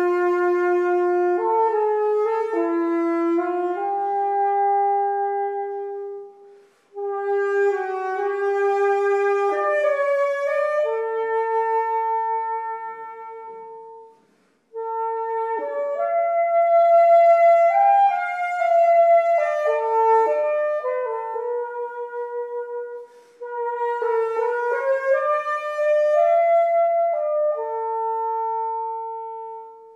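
Solo tárogató, the Hungarian wooden single-reed instrument, playing a slow melody of long held notes. The tune comes in four phrases with short breaks between them, and the last note ends just at the close.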